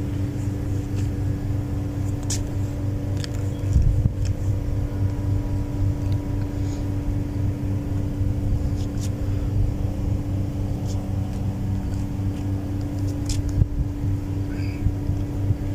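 A steady low mechanical hum, even in pitch, with a few faint clicks.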